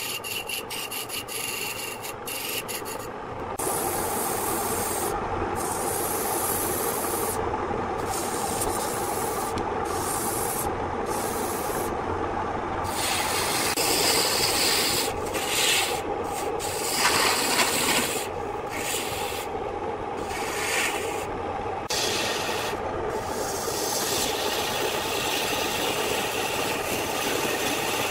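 Hand-held turning chisel cutting a spinning wooden blank on an electric wood lathe: a continuous rough scraping and shaving. The high hiss of the cut breaks off briefly again and again, mostly in the first half, then runs more evenly.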